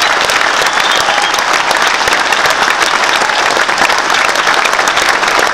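A large crowd in an auditorium applauding steadily, with one pair of hands clapping close by.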